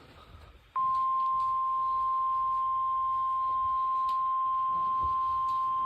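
NOAA Weather Radio warning alarm tone: a single steady 1050 Hz tone that cuts in suddenly about a second in and holds unchanged. It signals that a warning broadcast, here a severe thunderstorm warning, is about to follow.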